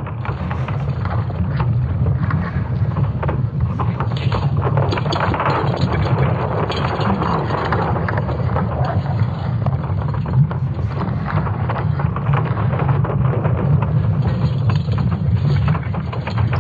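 Sonification of Earth's magnetic field made from ESA Swarm satellite magnetic signals: a deep, continuous rumble with crackling and creaking over it, representing the field's interaction with a solar storm.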